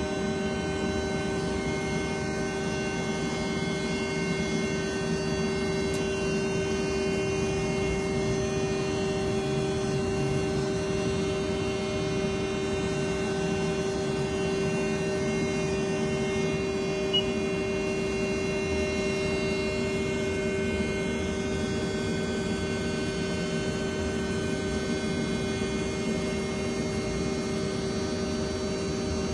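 Haas ST10Y CNC lathe running under power: a steady hum with a constant mid-pitched whine and fainter higher tones, unchanging throughout, with one brief tick partway through.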